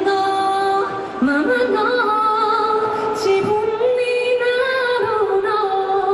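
A man with a very high, soft voice singing unaccompanied into a handheld microphone, holding long notes.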